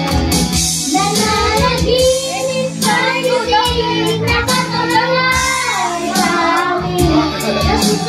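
A young girl singing into a microphone over backing music with a steady beat, both played through loudspeakers.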